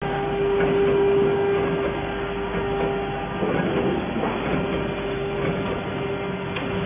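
Steady hum of running machinery with a constant mid-pitched whine, over workshop noise. The whine fades briefly about halfway through, then returns.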